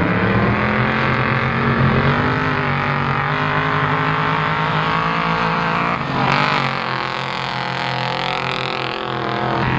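Off-road race vehicle engines running hard at high revs, with an abrupt change to another engine sound about six seconds in.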